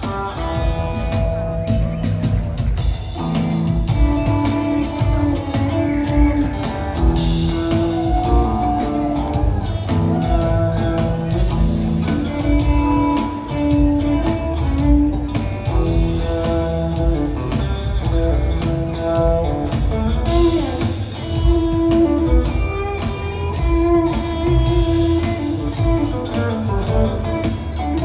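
Live rock trio playing an instrumental passage: guitar notes over bass and drums, recorded from the audience on a phone.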